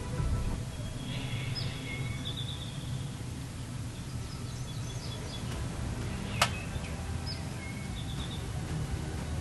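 Small birds chirping and calling in short bursts over a steady low background noise, with one sharp click about six and a half seconds in.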